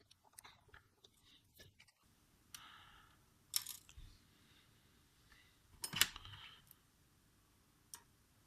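Faint handling of small phone-repair tools and parts on a workbench: a few light clicks and taps, the sharpest about three and a half and six seconds in, with soft scraping in between.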